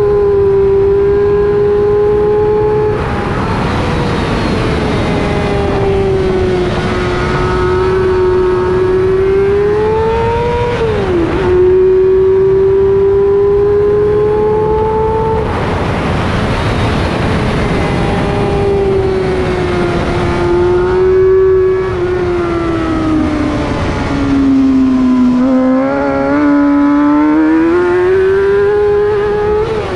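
Sport motorcycle engine pulling hard on a race track, recorded onboard under heavy wind noise; the engine note rises and falls with throttle and gear changes, with sharp drops about 3, 11 and 15 seconds in and a deep dip near the end before it climbs again.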